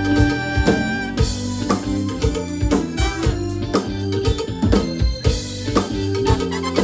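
Live band playing a disco-funk cover with a steady drum beat under sustained keyboard chords.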